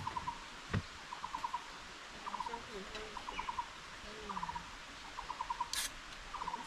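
An animal calling over and over, each call a quick run of five or six pulses, roughly once a second, with a single knock under a second in and a sharp click near the end.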